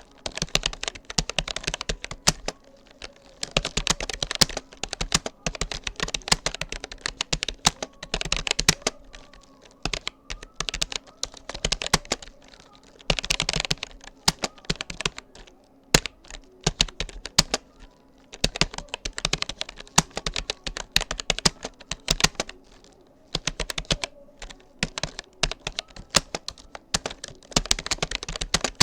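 Rapoo computer keyboard being typed on at a steady pace, its key clicks coming in quick runs of a few seconds with short pauses between.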